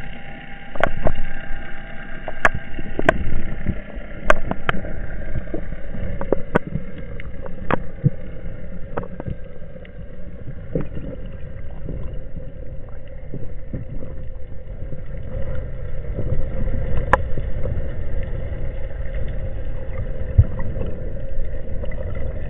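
Underwater sound picked up through the camera housing: a steady low rumble with a held hum above it, and sharp clicks scattered through it.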